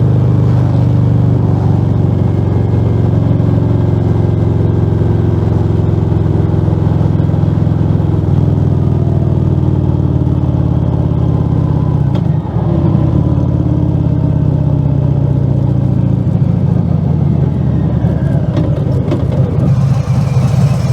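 Harley-Davidson Fat Bob 114's Milwaukee-Eight 114 V-twin running loud and unbaffled through Rinehart slip-on mufflers with the dB killers removed, under way. The engine note eases down around the middle, dips briefly about twelve seconds in, then climbs again.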